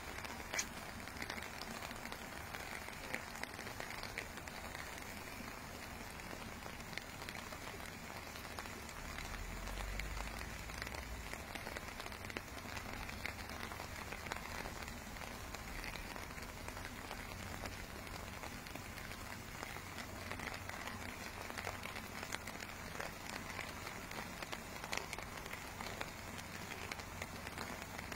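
Rain falling on a lake's surface: a steady, even patter of many small drops. A brief low rumble comes in about ten seconds in.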